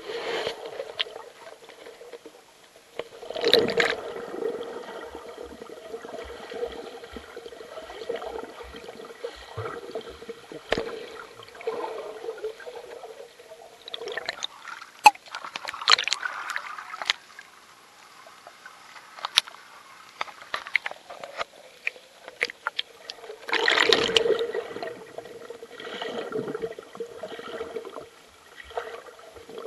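Creek water moving past a camera held underwater: muffled gurgling and swishing with a steady low hum, swelling loudest about three seconds in and again about three quarters of the way through, with scattered small clicks and knocks.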